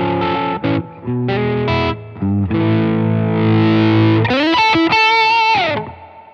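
Fender Mahogany Blacktop Stratocaster HHH electric guitar played with overdrive: short chord stabs with brief gaps, a held chord, then notes bent up about four seconds in, held with vibrato and released back down before ringing off near the end.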